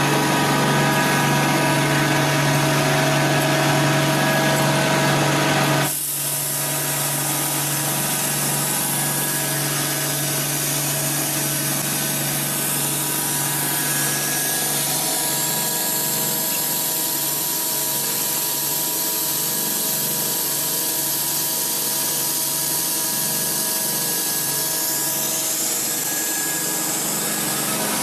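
Thread rolling machine running steadily as its grooved dies roll a thread onto a steel bar: a constant machine hum with several steady whining tones. The sound changes abruptly about six seconds in, with more hiss above and a weaker hum, then runs on steadily.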